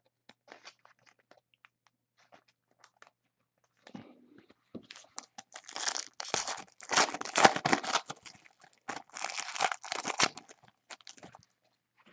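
Foil wrapper of a Panini basketball card pack being torn open and crinkled by hand. The crinkling starts about five seconds in, is loudest in the middle and dies away near the end, after a few faint clicks of cards being handled.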